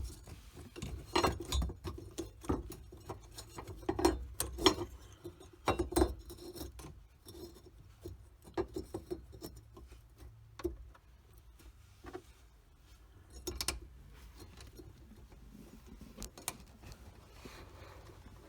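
Metal clinks and taps as the locking ring of an in-tank fuel pump is fitted back over the pump flange and worked around by hand. The knocks come thick and fast for the first several seconds, then thin out to an occasional click.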